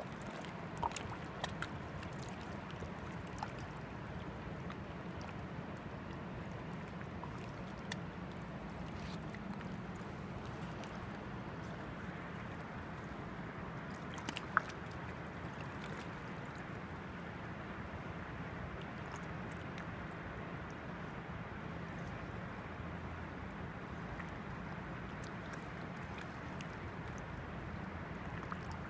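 Steady rushing of river water, with a few faint clicks over it.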